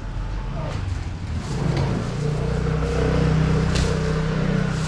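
A motor vehicle's engine running close by, a steady hum that grows louder about two seconds in, with a short knock near the end.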